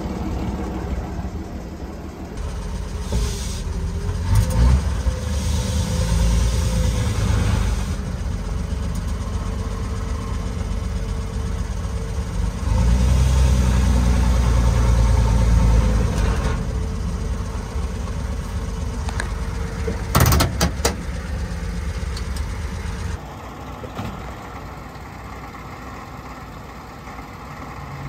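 1937 Plymouth's 201 cubic inch flathead six running, growing louder for a few seconds twice, with a few sharp knocks about twenty seconds in. Near the end it settles to a quieter, even run.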